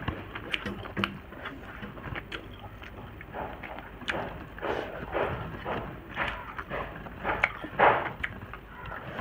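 Eating sounds from a mukbang: chewing and wet mouth clicks, with fingers mixing rice on a steel plate, as a string of short irregular clicks and smacks, the loudest a little before the end.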